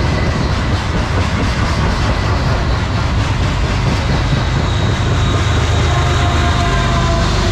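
Loaded freight cars rolling past at speed, their wheels clattering and rumbling on the rails. In the last couple of seconds a CSX GE ES44AH diesel locomotive, the train's mid-train distributed-power unit, comes alongside and adds a steady engine drone and whine on top of the rail noise.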